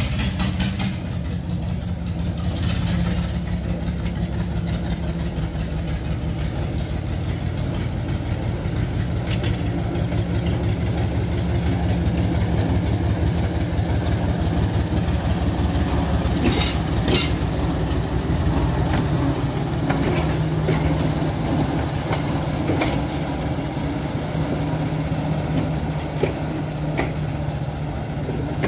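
Narrow-gauge diesel locomotive engine running under load as it pulls a train of passenger carriages away and past at close range, growing louder as it nears. A few sharp clicks come about halfway through.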